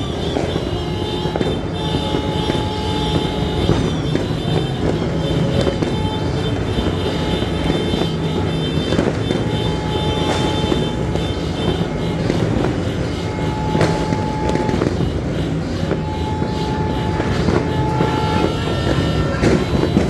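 Dense, loud street din of a crowded celebration: a steady low rumble of vehicle engines under a rapid crackle. A steady high tone sounds on and off for a second or two at a time.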